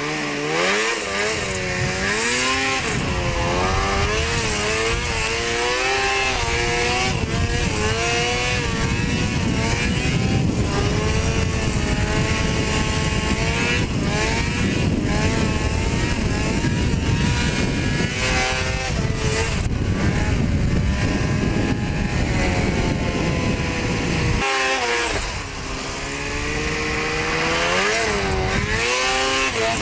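Snowmobile engine under way, its pitch rising and falling repeatedly as the throttle is worked, over a steady rushing noise. It drops off briefly about three quarters of the way through, then climbs again.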